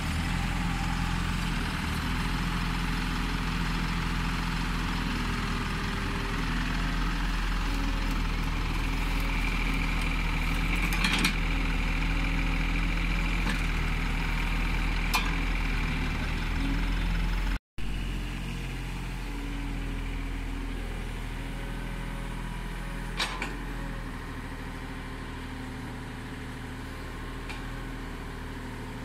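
Komatsu PC30 mini excavator's diesel engine running steadily while it works, with a few sharp metallic clanks now and then. The sound drops out for an instant about two-thirds of the way through.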